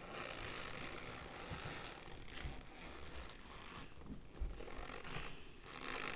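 Dry cornstarch being squeezed and crumbled in the hands, a soft crunching that comes in several squeezes with short pauses between.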